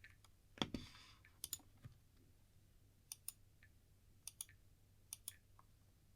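Mechanical keyboard fitted with AKKO CS Starfish switches, keys pressed one at a time: a handful of separate keystrokes, most heard as a quick pair of clacks for press and release. The loudest, about half a second in, has a short ringing tail.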